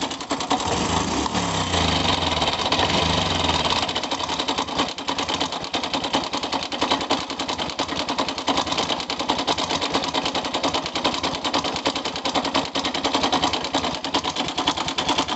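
Honda Wave 110i's single-cylinder four-stroke engine running with a fast, rattling clatter, revving up about a second in and dropping back to idle near four seconds. A rough, struggling engine noise that the owner says comes and goes.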